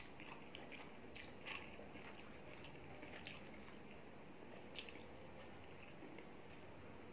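Faint eating sounds of a meal of rice, curry and boiled egg eaten by hand: scattered soft wet clicks as fingers squish the rice and egg, along with chewing.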